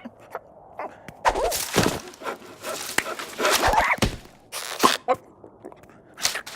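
Cartoon soundtrack of slapstick sound effects mixed with a cartoon character's wordless vocal noises: several noisy bursts in the first half, then a couple of sharp hits.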